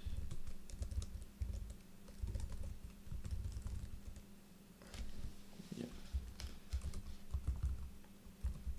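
Typing on a ThinkPad laptop's keyboard: irregular key clicks and taps in quick bursts, with a short pause about halfway through.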